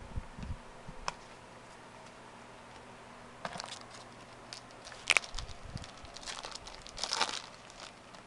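A trading-card pack wrapper crinkling and tearing, with cards being handled: several short crackly rustles, the sharpest about five seconds in and another just after seven seconds.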